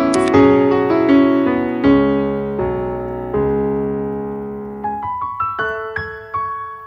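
Background piano music: a slow piece of chords and single notes that ring and fade, thinning out to sparse single notes in the last couple of seconds.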